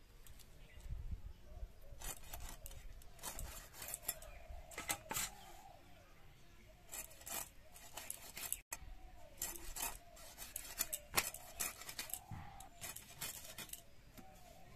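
Fish being scaled and cut on a bonti, the fish drawn against the fixed steel blade. It makes repeated short rasping scrapes at irregular intervals, sometimes several in quick succession.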